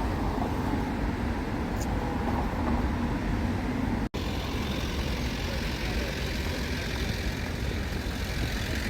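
Steady rumble and hiss of a moving vehicle, which drops out for an instant about four seconds in.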